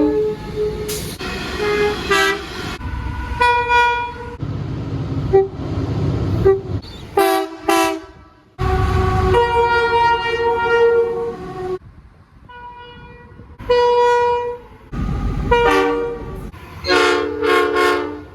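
Locomotive air horns sounding chords in a run of short blasts, several cut off abruptly where the clips are spliced together, over the low rumble of moving trains.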